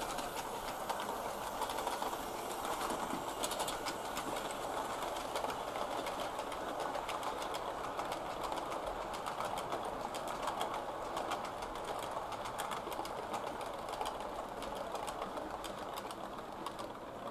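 Model railway train running steadily: a kit-built A4 locomotive hauling a rake of coaches. Its wheels make an even rolling rumble on the track, with a rapid, irregular patter of small clicks as they cross rail joints and pointwork.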